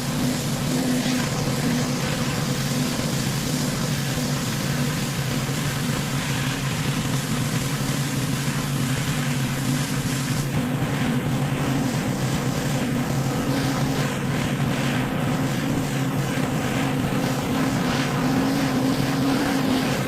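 Pressure washer running: a steady engine hum under the hiss of the high-pressure water spray, whose hiss changes about ten seconds in.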